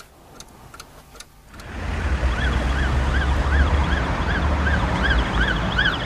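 Emergency vehicle siren sweeping rapidly up and down, about two and a half times a second, over a low engine rumble. It fades in about a second and a half in, after a few faint ticks.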